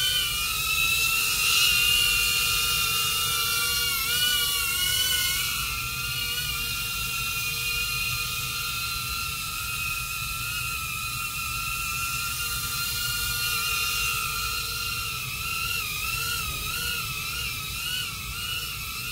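HISINGY StarGazer micro FPV drone's small ducted propellers and motors whining at a high pitch as it hovers and flies. The pitch wavers with throttle, sliding down and back about four to five seconds in and wobbling quickly up and down near the end.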